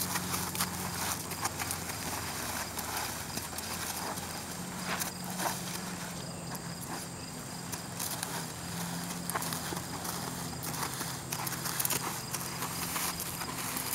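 Hoofbeats of a horse being led at a walk on a dirt arena: irregular soft steps, with the handler's footsteps alongside.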